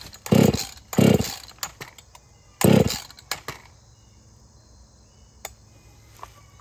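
Jonsered 2149 two-stroke chainsaw being pull-started: three hard yanks on the recoil starter, each a short burst as the engine turns over without catching. After the last pull, about a third of the way in, it goes quiet: the starter rope has broken.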